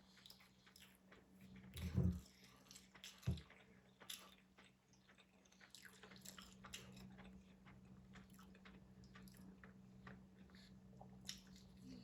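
Close-up chewing and biting of a sub sandwich, with many small wet mouth clicks. There are two low thumps about two and three seconds in, and a steady low hum underneath.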